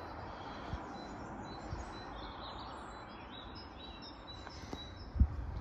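Steady background noise with small birds chirping on and off, and a few low bumps on the microphone, the loudest near the end.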